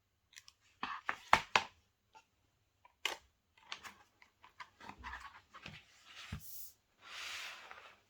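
Hands handling a mediabook Blu-ray package: a quick run of sharp taps and clicks, then softer rustles and taps, and a longer sliding, brushing sound near the end.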